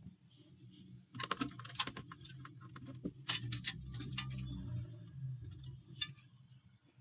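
Clusters of sharp clicks and light rattles, as of small hard objects being handled, about a second in, again around three to four seconds in and once near six seconds, over a low steady hum.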